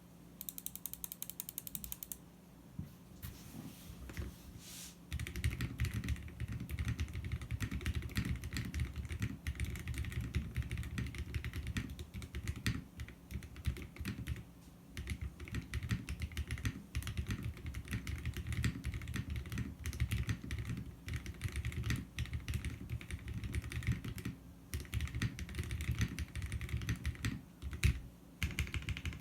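Typing on a custom mechanical keyboard with a glass Baldr60 case, aluminium plate, o-ring-mounted PCB, Cow switches and GMK keycaps: a fast, even run of keystrokes for about two seconds, a short pause, then continuous typing from about five seconds in, with brief pauses between bursts.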